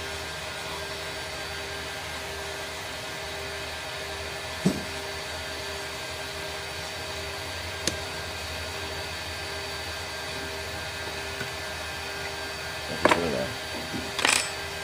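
Steady whirring machine hum with several fixed tones in it, under single sharp clicks of a hex key working the screws of a spindle motor's plastic terminal-box cover. About a second before the end, a burst of knocks and rattling as the cover is lifted off and set down.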